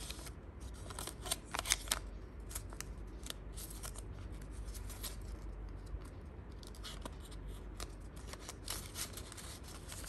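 A paper banknote being folded and slid into a paper envelope by hand: crisp paper rustles and snaps, busiest about a second in and again near the end.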